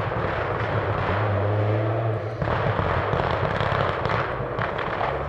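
Rally car engine with a rapid string of pops and bangs from the exhaust, a machine-gun-like crackle typical of an anti-lag system. The engine note drops away about halfway through while the crackling goes on.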